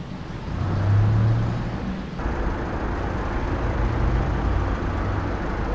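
Car driving along a road: a steady low engine hum, loudest about a second in, with a rush of tyre and road noise joining about two seconds in.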